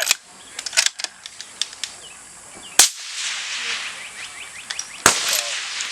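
Suppressed centerfire rifle shots: two sharp reports about two seconds apart, near the middle and near the end, each with a short trailing echo. There is a quieter crack about a second in, and small clicks between the shots.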